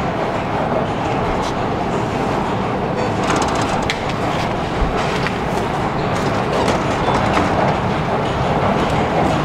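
Steady rumbling noise of a metro station, with a run of light clicks in the middle.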